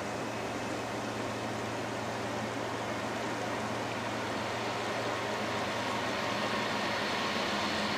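Rushing river water with a diesel freight train approaching unseen, its sound slowly growing louder over the second half.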